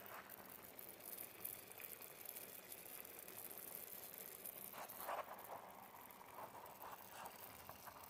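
Near silence: a faint steady hiss with a few soft crackles.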